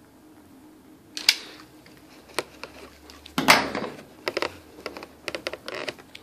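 Handling noise: sharp clicks and knocks with a brief rustling scrape in the middle, ending in a quick run of clicks, as the phone and objects on the table are picked up and moved.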